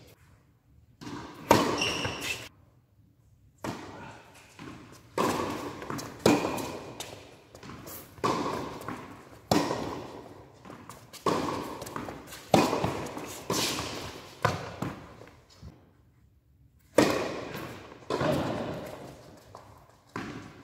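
A tennis rally: sharp racket strikes on the ball and ball bounces on the hard court, about one every second or so, each echoing in a large indoor hall. The hits stop for a moment a little after the middle, then a new rally starts.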